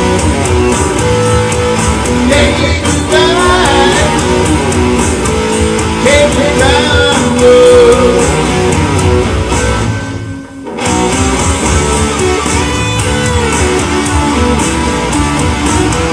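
Electric guitar playing lead lines with bent notes over a full music backing. The music dips briefly almost to silence about ten seconds in, then carries on.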